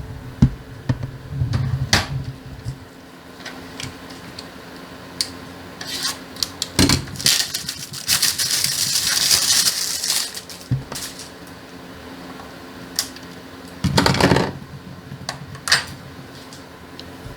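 Hands handling tool-set packaging and a plastic tool case: scattered clicks and knocks, with a rustle of packaging lasting about three seconds in the middle.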